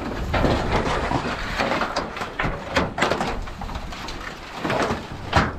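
Sheets of tin being pulled off a stack and handed along, with repeated scrapes and clatters, one of the sharpest about five seconds in.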